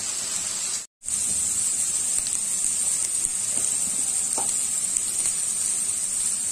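Boiled jackfruit pieces sizzling steadily as they fry in hot mustard oil over a high flame. The sound cuts out for a moment about a second in, then the sizzle carries on.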